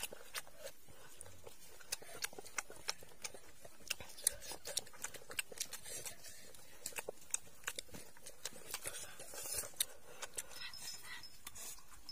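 Close-up eating sounds: a person chewing fish with the mouth open, with wet lip smacks and clicks coming several times a second, and a breathy puff about three quarters of the way through.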